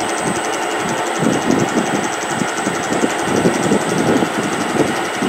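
Vertical milling machine running, its end mill cutting a keyway into a Tecumseh engine crankshaft under the power table feed: a steady machining noise with a fast, even chatter.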